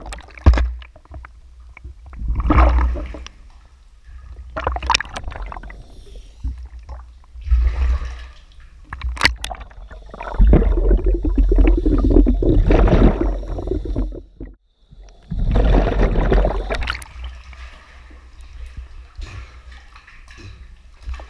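Water gurgling and sloshing in irregular surges a few seconds apart, with a low rumble underneath and a few sharp knocks, as a cave diver moves through a flooded, muddy passage.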